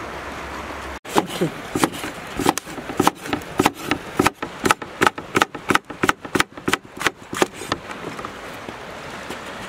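Knife chopping green peppers on a wooden cutting board. A run of sharp knocks starts about a second in, quickens to about three or four a second, and stops shortly before the end.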